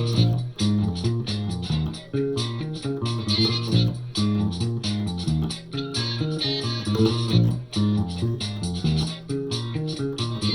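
Electric bass guitar playing a repeating funk riff, the phrase coming round about every two seconds, with a steady beat behind it.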